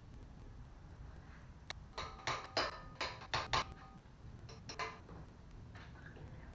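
A quick, irregular run of sharp clicks and knocks about two seconds in, some with a brief ring, and two more a little later.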